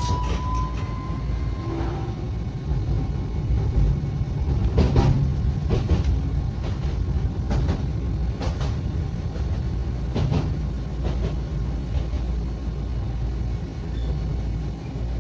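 Tokyu Setagaya Line 300 series railcar running, heard from inside: a steady low rumble from motors and wheels, with a faint motor whine that rises slightly and dies away about a second and a half in. Several sharp clacks from the wheels on the track come through the middle stretch.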